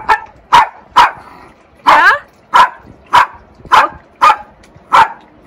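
Small dachshund barking repeatedly: about nine short, sharp barks, roughly two a second.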